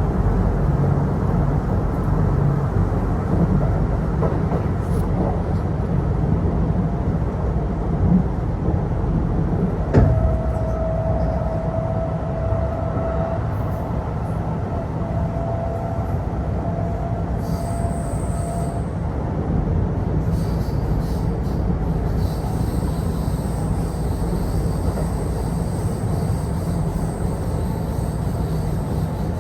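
Kintetsu Osaka Line local train heard from inside the car while running between stations: a steady rumble of wheels and running gear. About ten seconds in there is a single sharp knock, followed by a thin wheel squeal held for several seconds.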